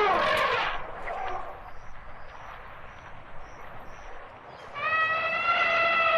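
Elephant calls: a rough, grating call fades out under a second in, and after a quieter stretch a long, steady elephant trumpet begins near the end.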